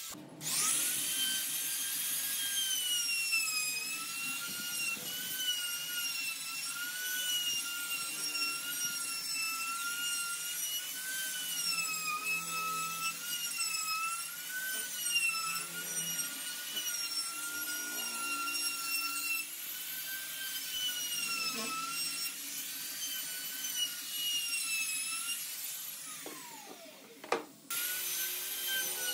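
Electric power tool working wood: a high-pitched motor whine whose pitch wavers as the load changes. It winds down a little before the end and starts up again.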